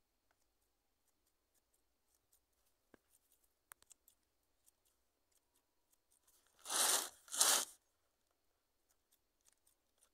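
Scissors snipping herb seedlings: faint scattered clicks, then two louder scrapes of about half a second each, close together about seven seconds in.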